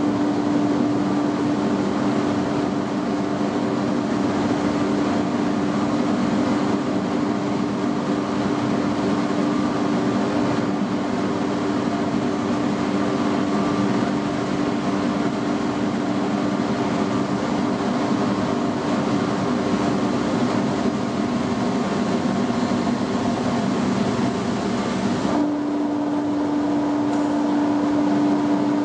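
Fiber-opening and pillow-filling machinery running at a steady pace: an electric motor's constant hum over a dense whirring rush of air and fiber. About 25 seconds in the sound changes abruptly and the hum becomes clearer.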